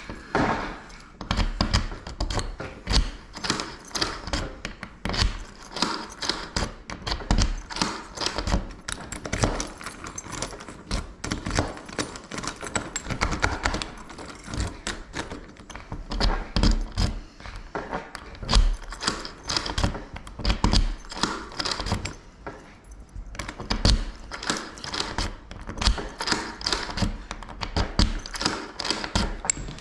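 A ring of keys jangling, with many small metallic clicks and knocks as keys are tried in a freshly rekeyed door lock, pausing briefly about three-quarters of the way through.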